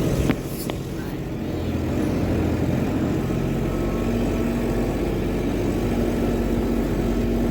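Kubota farm vehicle's engine running steadily on the move, with a single sharp knock about a third of a second in.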